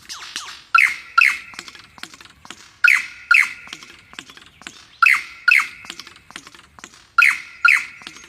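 A bird calling in pairs of sharp notes that fall in pitch: four pairs, each about two seconds apart. A scatter of faint, quick clicks runs between the calls.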